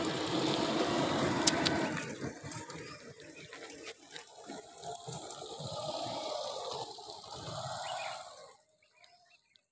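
A motorcycle passes during the first two seconds. Then the crinkle and rustle of a foil snack wrapper as two puppies chew and tug at it, cutting off abruptly near the end.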